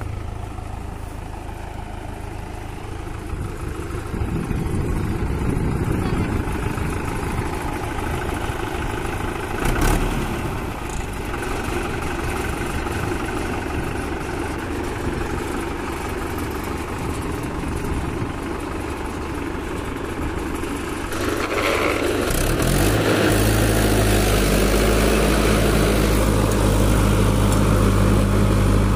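Small farm tractor's diesel engine running steadily as it drags a harrow on iron cage wheels through a flooded paddy field, puddling the mud. About twenty-two seconds in, the engine sound becomes louder and steadier, and there is a single knock about ten seconds in.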